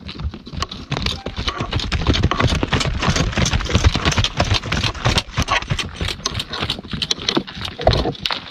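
Hooves of a string of pack mules clopping and clattering on a stony dirt trail as they walk close past, a dense irregular run of hoof strikes.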